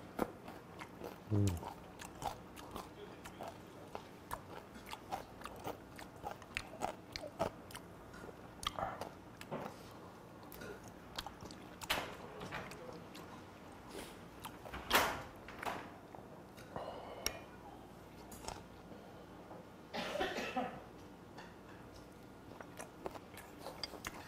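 Close, wet chewing and mouth clicks of a man eating chewy seasoned skate, irregular throughout, with a brief low hum about a second in and a louder breathy sound about twenty seconds in.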